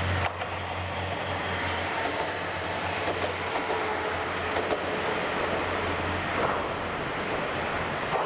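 Kominato Railway diesel railcar running on the line, a steady low engine hum under rolling wheel-on-rail noise. The hum drops away about six seconds in.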